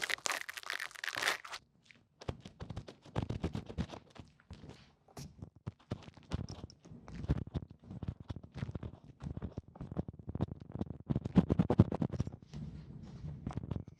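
Close-miked ASMR trigger sounds: a burst of crinkling for the first second or so, then irregular scratching and crunching clicks.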